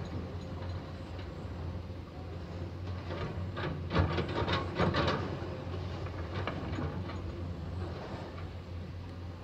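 Distant hydraulic excavator's diesel engine running with a steady low hum. A burst of clanking and knocks comes about four seconds in and lasts a little over a second.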